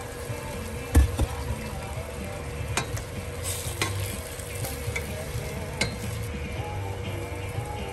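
Raw shrimp dropped into a hot stainless steel pot of cherry tomatoes, landing with a thump about a second in, then stirred with a spatula that scrapes and knocks against the pot over a steady sizzle.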